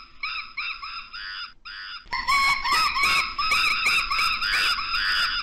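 Monkeys calling: a quick series of short calls that rise and fall in pitch, about three or four a second. About two seconds in the calls get louder and several voices overlap.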